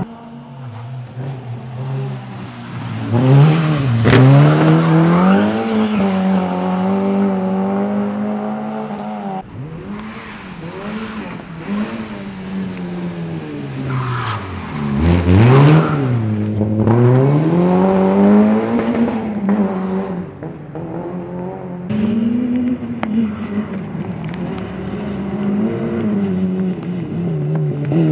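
Peugeot 106 rally car's engine revving hard, its pitch climbing and falling again and again as the driver shifts and lifts through the corners. It is loudest twice, as the car passes close by.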